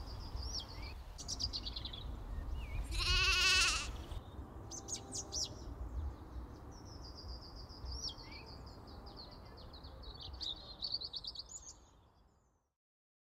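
A sheep bleats once, loud, about three seconds in, with birds singing around it; the sound fades out near the end.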